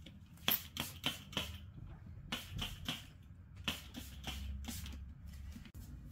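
A run of about a dozen sharp, light clicks and taps in quick groups of three to five, over a steady low hum.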